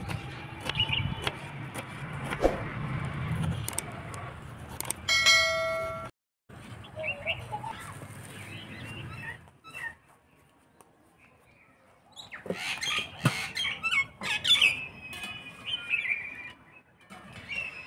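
A knife cutting tomatoes on a wooden board, a few scattered cuts, then a loud steady tone lasting about a second about five seconds in. Later, birds chirping, mixed with clicks and clatter.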